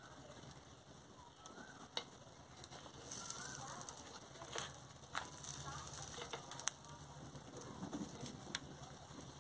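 Faint sizzling and crackling from tandoori chicken cooking in a salt-lined steel pot over a wood fire, with a few sharp ticks scattered through.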